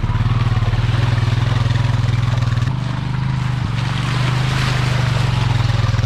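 ATV engine running steadily with an even low pulse as the quad drives along a flooded dirt trail, with a slight dip in level about halfway through.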